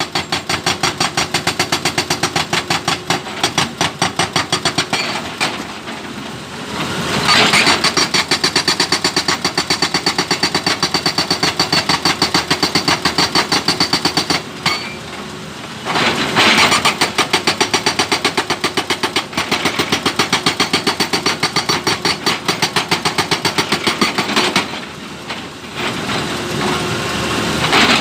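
Excavator-mounted hydraulic breaker hammering a stone boulder to split it into smaller pieces. The blows come in a fast, even rattle of many strokes a second, with a few short pauses while the excavator's engine keeps running.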